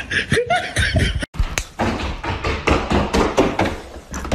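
Irregular thumps and taps of a dog's booted feet on a hardwood floor, starting after a brief break about a second in.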